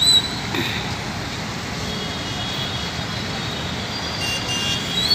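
Steady traffic noise from a jammed road of cars, auto-rickshaws and motorbikes, with a short high beep at the start and another, louder one at the end.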